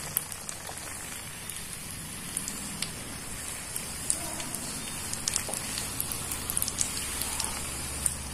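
Spring roll deep-frying in hot oil: a steady sizzle with scattered crackles.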